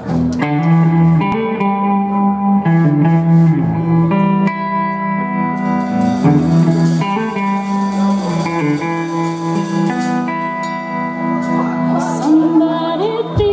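Live blues band playing, led by electric guitar over drums, with cymbal strokes.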